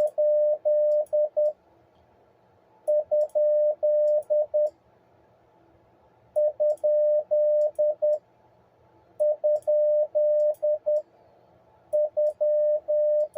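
Morse code sidetone keyed with a paddle: a steady single-pitched beep sending the question mark (di-di-dah-dah-di-dit) about five times over, with a pause between each.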